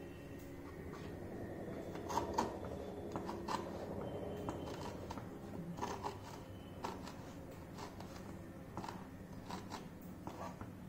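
Knife cutting through raw eggplant slices on a wooden chopping board to cut out their centres: scattered short knocks and scrapes of the blade against the board, the loudest a couple of seconds in.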